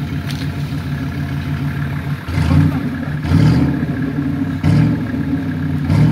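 Off-road 4x4 competition vehicle's engine running, then revved hard in four bursts about a second apart from roughly two seconds in.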